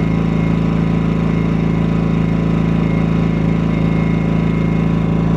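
Small inverter generator engine running steadily in economy mode at about 3,300 RPM, an even, unchanging drone.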